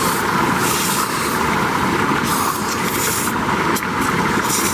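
Strong wind rushing against a tent, a steady noisy roar whose upper hiss swells and fades in gusts.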